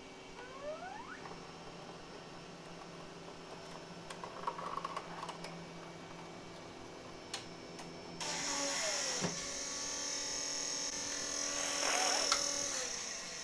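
JG Aurora 3D printer's motors whirring as it runs its filament-loading routine: a short rising whine at the start, a few clicks, then from about two-thirds of the way in a louder whirring whose pitch falls and rises before it stops.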